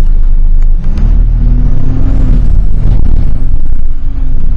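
Road vehicle engine running with a heavy low rumble, its pitch rising and falling about a second in and again near the end.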